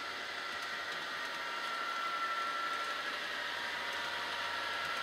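H0-scale model diesel locomotive running on the layout as it approaches: a steady whirring hum with a faint high whine, growing slightly louder about two seconds in.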